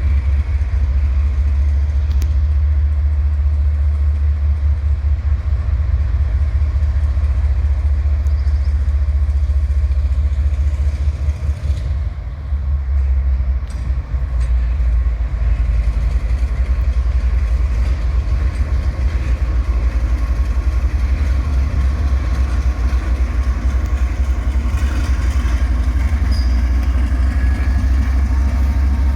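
Diesel engines of TE33A locomotives running with a steady low rumble, which drops briefly about twelve seconds in.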